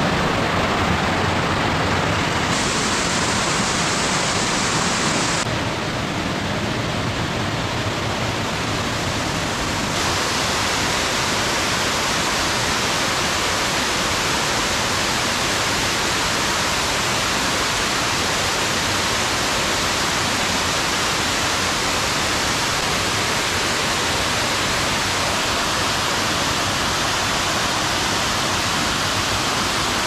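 Waterfall in heavy monsoon flow: white water pouring and cascading over rock in a loud, steady rush, its tone shifting slightly a few times in the first ten seconds.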